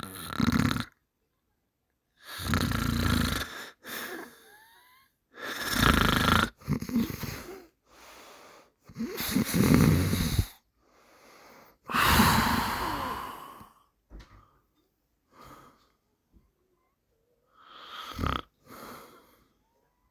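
A person snoring loudly, long rasping snores every couple of seconds, with fainter breaths in the last few seconds.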